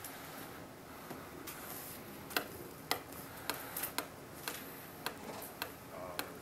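A pen stylus tapping on an interactive whiteboard, a dozen or so quick, irregular clicks while paging through slides.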